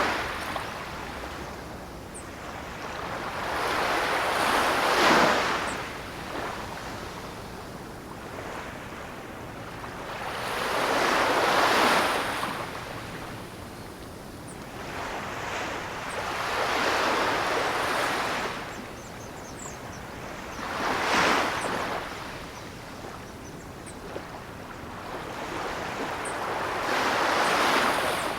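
Ocean waves breaking and washing up the shore, each surge of rushing surf swelling and fading, about one every five seconds.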